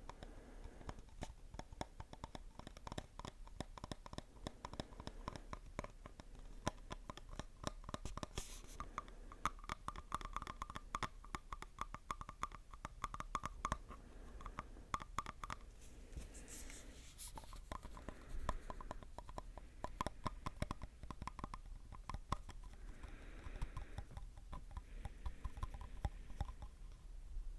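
Close-miked ASMR scratching: a dense, irregular stream of rapid scratches and small clicks.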